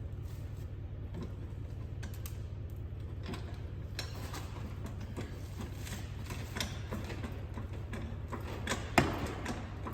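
Light scattered clicks and ticks of hand work on wheel hardware while a wheel is being mounted, over a steady low hum. A single sharp knock comes about nine seconds in.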